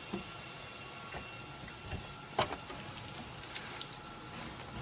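Scattered light clicks and taps of metal hardware being handled while a GPU riser bracket is screwed down inside a server chassis. The sharpest click comes about halfway through and a quick run of smaller ones follows, over a faint steady hum.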